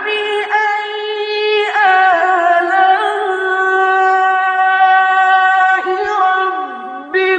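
A solo voice chanting in long, melodic held notes, with ornamented slides in pitch between them.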